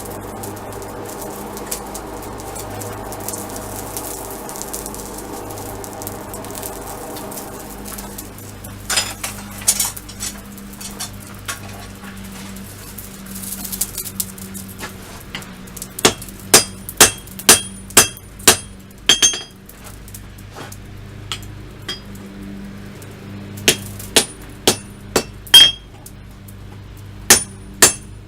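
Hand hammer striking hot steel on an anvil during rough forging: runs of sharp, ringing blows, about two a second, broken by short pauses, over a steady low hum.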